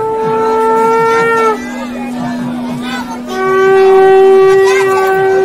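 Horns blown in long, steady, overlapping notes. The first note slides down and stops about a second and a half in, a lower one holds until about four seconds in, and a new, louder one starts just after three seconds and carries on.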